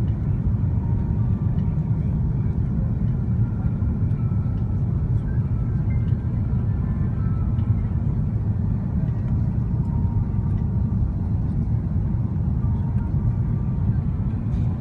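Steady low rumble inside the passenger cabin of an Airbus A330-300 on descent to land: engine and airflow noise, even throughout.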